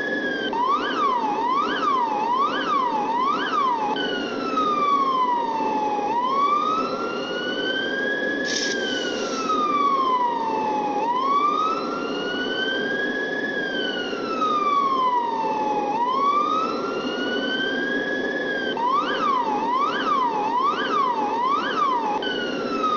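Electronic police siren cycling through a slow wail, each rising over about two seconds and falling over about three. It switches to a fast yelp of about five quick up-down sweeps right at the start and again near the end, over a steady lower hum, with a brief hiss about nine seconds in.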